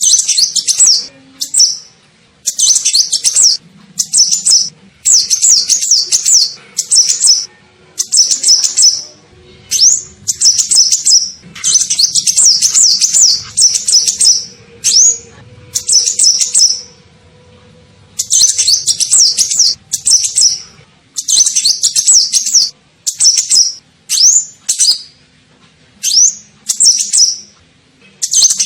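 Kolibri ninja sunbird lure call: loud, high, rapid chirping phrases, each a second or less, repeated in quick succession with short gaps. Some phrases end in a quick rising whistle.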